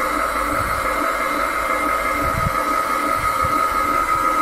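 Heng Long King Tiger RC tank's turret traversing under radio control, a steady electric whine from its traverse motor and gearbox, with a few low knocks.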